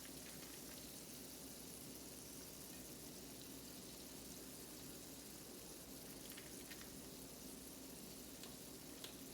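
Faint steady kitchen background hiss with a low hum, and a few light clicks in the second half.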